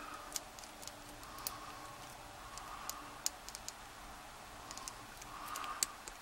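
Faint, scattered metallic ticks of a lock pick moving against the pins inside a Kasp 19070X padlock's keyway during single-pin picking.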